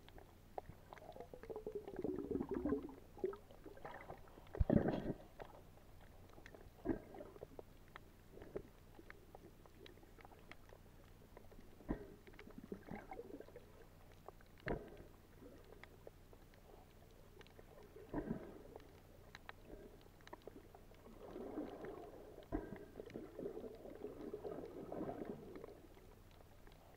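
Muffled water movement heard through a submerged camera: irregular gurgling surges with scattered sharp clicks and knocks. The strongest surge is a long one near the end.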